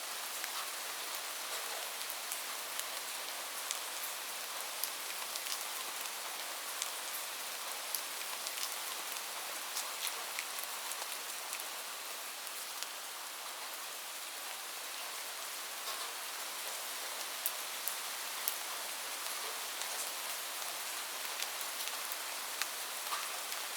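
Steady rain falling on a roof, an even hiss with single drops ticking sharply every so often.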